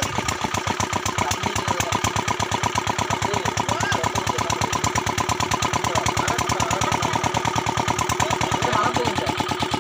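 A small engine running steadily with a fast, even pulse, under faint voices.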